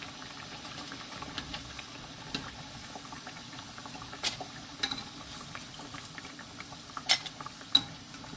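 Battered sweet-potato slices deep-frying in hot oil, a steady bubbling sizzle, the slices turned yellow and nearly done. Several sharp clicks of metal tongs against the glass pot and the fried pieces as they are lifted out, the loudest about seven seconds in and again just before the end.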